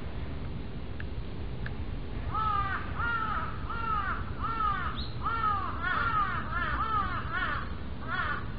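A crow cawing: a run of a dozen or so arched caws starting about two seconds in and coming closer together near the end.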